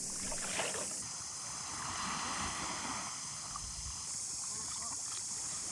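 Sea kayak paddling: water swishing and lapping around the paddle and hull, with a steady high hiss behind it.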